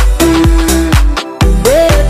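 Background music: an upbeat dance-style track with a steady kick-drum beat about twice a second under a sustained melody. The music cuts out for a moment a little past the middle, then the beat comes back.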